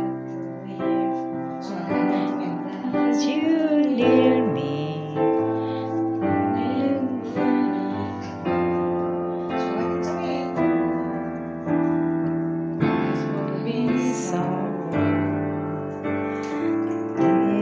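Digital piano playing a slow run of sustained chords, a new chord struck every second or two.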